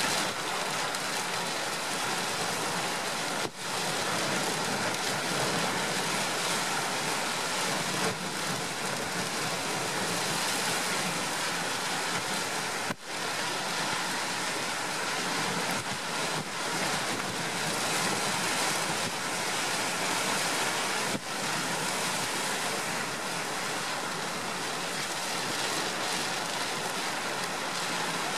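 Storm noise: a steady roar of wind and heavy surf breaking against a sea wall, with a few momentary drops in level.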